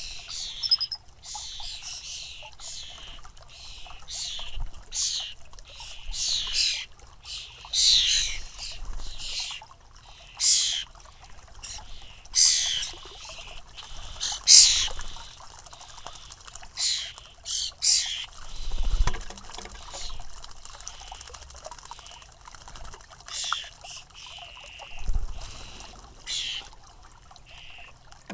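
European starling fledglings giving short, harsh, raspy calls, about one a second, the begging calls of young starlings.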